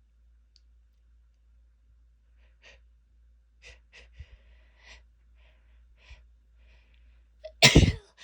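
A woman's short, catching breaths as a sneeze builds, then one loud sneeze near the end.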